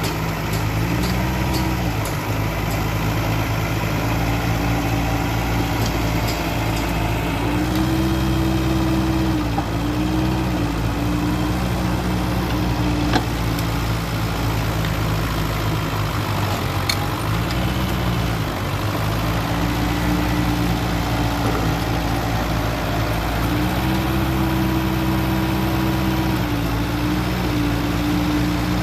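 Mitsubishi BD2E bulldozer's diesel engine running, its pitch rising and falling several times as the engine speed changes. A single sharp clank about 13 seconds in.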